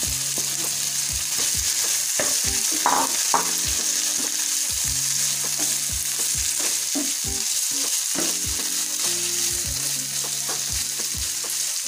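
Chicken pieces sizzling in hot oil and spice paste in a frying pan while a spatula stirs them, with a steady hiss and scattered scrapes and knocks of the spatula against the pan.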